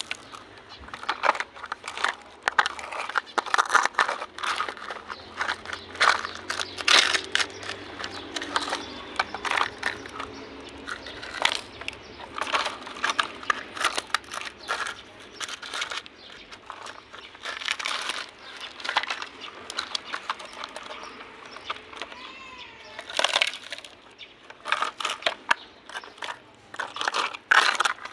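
Handling noise: a busy, irregular run of clicks, taps and crinkling.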